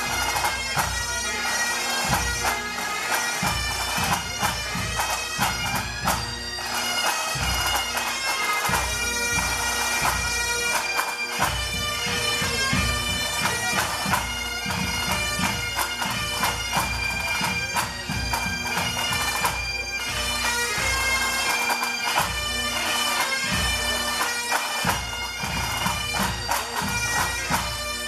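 Pipe band playing: Highland bagpipes sound a melody over their steady drones, with the band's drums beating along.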